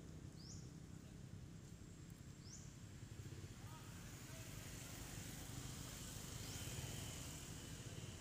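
Faint outdoor ambience: a steady low rumble with three short, high chirps spread across it.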